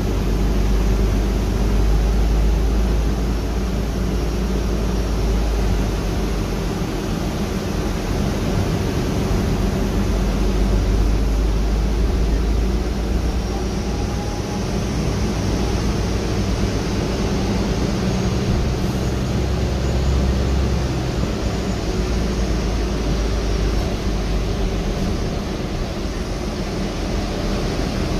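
Cabin noise inside a 2014 Gillig trolley-replica hybrid bus under way: a steady drivetrain hum and road rumble. A faint high whine rises and fades through the middle.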